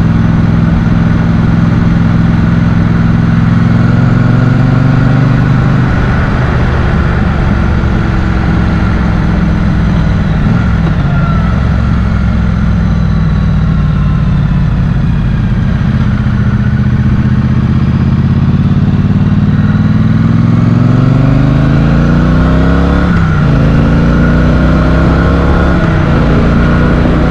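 Motorcycle engine running while riding, its pitch dropping about five seconds in, holding low, then climbing steadily again near the end as the throttle is opened.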